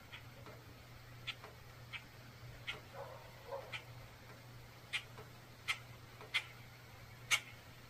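Sharp clicks at irregular intervals, roughly one a second, over a faint steady hum, with a couple of soft lower sounds about three seconds in.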